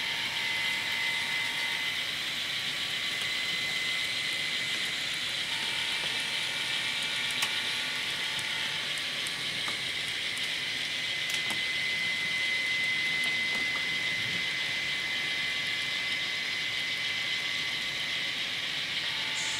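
Model trains running on the layout: a steady whir of small locomotive motors and metal wheels rolling on track, with a thin high whine and a few light clicks.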